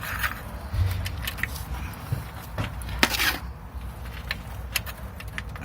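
Scattered light clicks, knocks and scrapes of small parts being handled as a shifter bush is worked into place on a car's gear linkage, with one stronger scrape about three seconds in.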